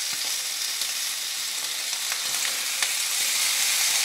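Thin-sliced bacon sizzling in a frying pan on high heat, with a steady hiss and a few small pops. The sizzle grows a little louder about three seconds in as a second strip goes into the pan.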